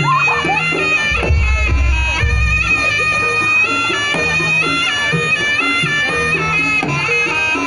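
Live jaranan gamelan music: a shrill, nasal slompret (Javanese shawm) plays a long wavering melody over drums and repeated gong-chime strokes, with a deep gong boom about a second in.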